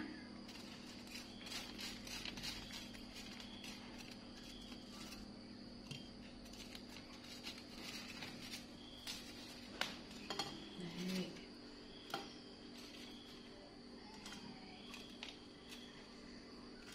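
Wooden chopsticks clicking and scraping against a plastic colander and fried potato strips as they are turned and picked out: light, scattered clicks, with a few louder knocks about ten and twelve seconds in.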